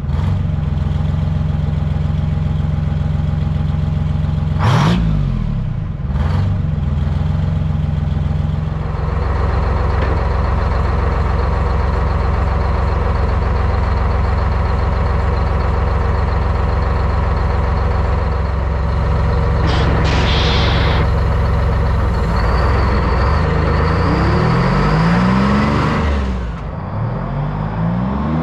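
Large engine running steadily, its sound changing abruptly several times, with revs rising and falling near the end.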